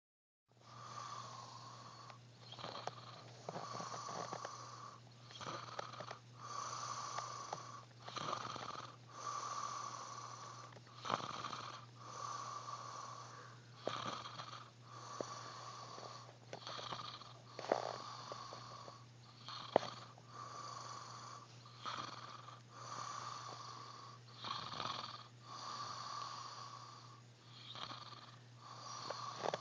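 A man snoring in his sleep: rough, wheezy snores repeating irregularly every one to two seconds, over a steady low hum.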